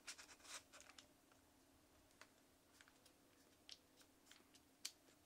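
Small clicks from handling a Fujifilm X100VI camera body around its battery door: a quick run of clicks in the first second, then a few single clicks spaced out.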